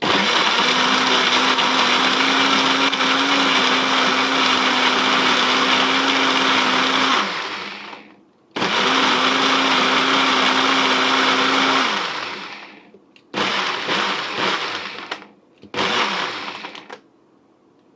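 Countertop blender motor running at full speed, blending ice, strawberries, carrots and water into a smoothie. It runs for about seven seconds, stops briefly, runs again for about three seconds and winds down, then gives two short pulses near the end.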